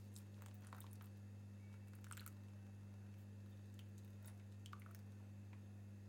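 Faint squishing and crackling from a plastic hand juicer as lemon juice is poured from it into a pot of hot milk to curdle it, a few scattered small clicks over a steady low hum.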